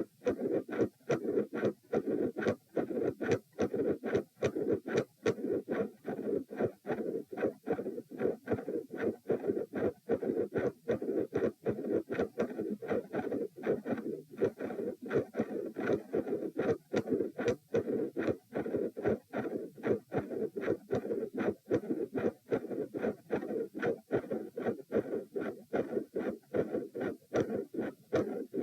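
Human heart sounds recorded at the chest: a regular heartbeat of sharp beats with a midsystolic murmur heard as a steady rushing between them.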